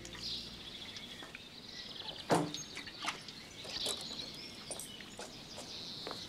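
Small birds chirping and twittering, with a few sharp clicks and knocks; the loudest knock comes about two seconds in.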